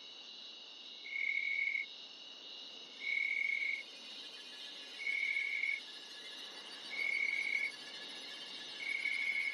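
Insects trilling: a steady high chorus, with one high trill of under a second repeating evenly about every two seconds.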